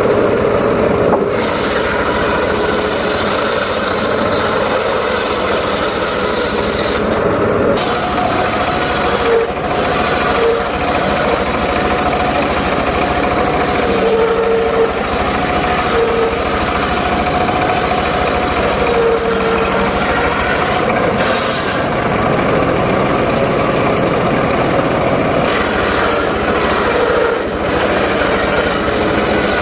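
Small engine of a wood saw running steadily and loudly, with a constant engine tone throughout.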